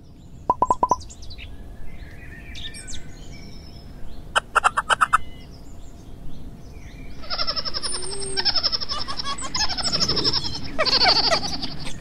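High chirping animal calls: a few quick chirps just after the start, a rapid trill about four seconds in, then dense, fast, repeated chirps from about seven seconds on.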